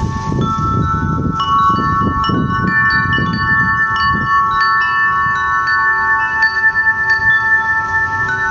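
Chimes ringing: struck metal tones at a handful of fixed pitches, overlapping and sustaining. A low rumble underneath fades out about four seconds in.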